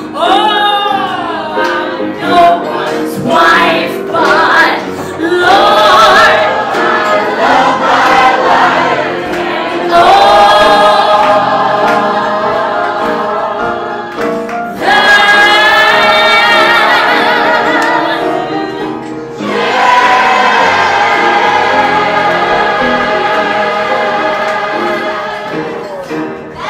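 A woman belting a show tune over piano accompaniment: short sung phrases, then three long held notes with a wide vibrato, each lasting several seconds.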